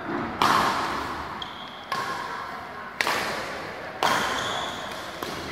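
Badminton rally: rackets strike the shuttlecock four times, about once every second or so, each hit sharp and echoing in a large hall. Short high squeaks of shoes on the court come between hits.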